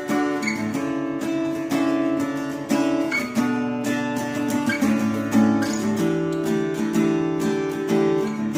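Epiphone AJ-220SCE solid-spruce, mahogany-bodied acoustic guitar playing chords in a steady rhythm, with a change of chord about six seconds in.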